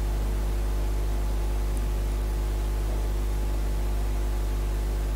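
Steady electrical hum with a hiss over it, the buzz of a live sound system with its microphone open.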